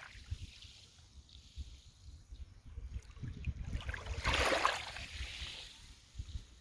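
Small waves of a calm sea lapping at the shore, with one soft wash that swells up and falls away about four seconds in, over a low rumble.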